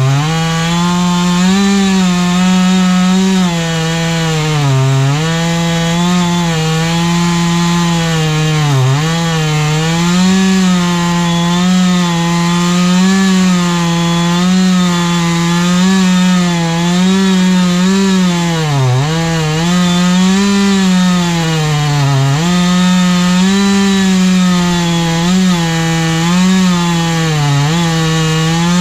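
Chainsaw engine running at high revs, ripping lengthwise through a mesquite log in a board-cutting fixture; its pitch dips briefly every few seconds as the chain bogs in the cut and then recovers.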